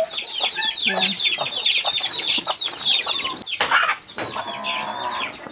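Small birds, most likely young chicks, chirping: many rapid, high, short downward-sweeping chirps running on without a break. A short clatter sounds a little past halfway.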